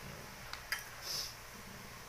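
Small plastic deli cups and damp substrate being handled: two light plastic clicks about half a second in, then a brief rustling scrape.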